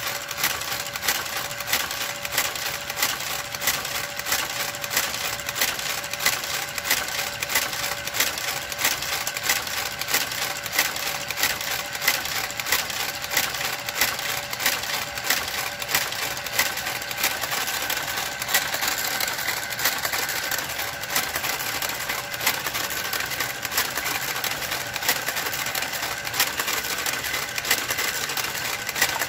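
Brother motorised garter carriage travelling across a knitting machine's needle bed: a small motor running steadily with rapid, even clicking as it works the needles one by one, knitting a one-by-one ribbed cuff.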